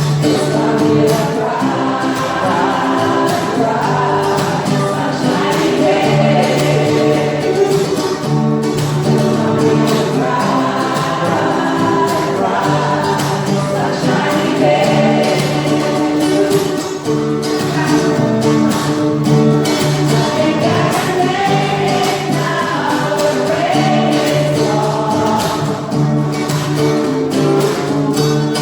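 Choir singing a gospel-style song with instrumental accompaniment and a steady beat.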